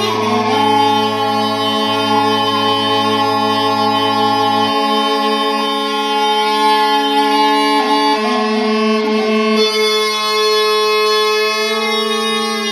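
Pipers' Choice mouth-blown Scottish smallpipes playing a tune: steady drones under the chanter melody. The lowest drone tone stops about five seconds in.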